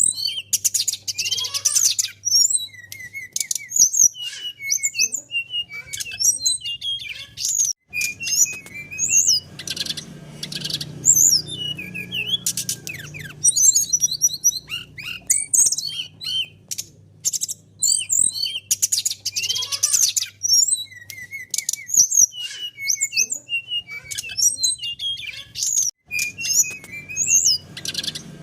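Brown-chested jungle flycatcher song: a fast, varied run of chirps, whistles and short rapid trills that goes on without pause. A faint low steady hum runs underneath.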